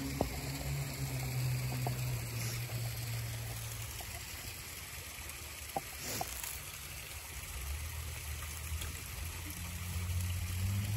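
Shallow creek water trickling steadily, with a couple of light knocks as a wooden board and wire-mesh grit sifter are set in the stream.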